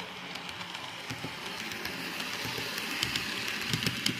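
Model railway diesel multiple unit running along the track: a steady whirr of the motor and wheels that grows a little louder, with a few clicks near the end.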